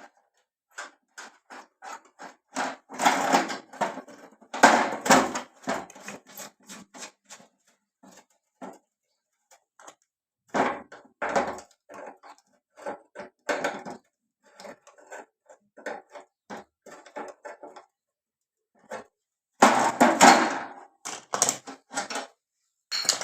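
Irregular clicks, taps and knocks of metal gas-stove parts and tools being handled, with louder clattering clusters about three seconds in, around the middle, and near the end.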